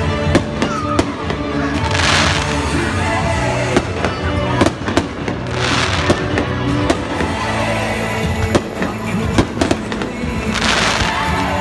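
Fireworks display: repeated sharp bangs and cracks, with longer hissing crackle bursts about two, six and eleven seconds in, over music that plays throughout.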